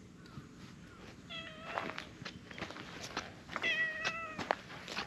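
Orange tabby cat meowing twice as it comes up, two level, drawn-out meows about two seconds apart, with light clicks and rustles in the grass.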